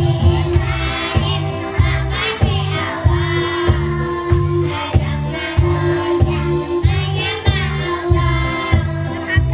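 Group of young children singing together over a backing track with a steady beat.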